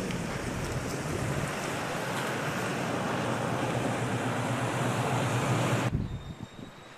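Steady rushing outdoor noise, like wind or distant surf, with a low steady hum underneath. It cuts off abruptly about six seconds in, leaving a much quieter background.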